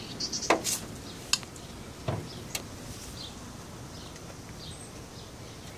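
Car hood being opened by hand: several clicks and knocks from the latch and hood in the first two or three seconds, then only faint steady background noise. The engine is not running.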